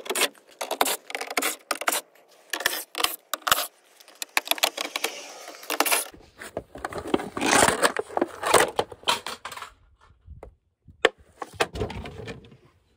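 Clicks, taps and rattles of hard plastic and metal parts being handled and pried at while the window switch is worked loose from the truck's door panel, with a couple of stretches of scraping.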